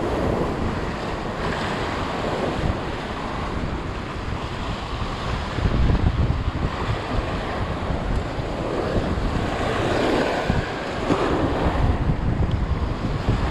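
Sea surf breaking and washing over rocks, with gusting wind buffeting the microphone; the rumble swells about six seconds in and again near the end.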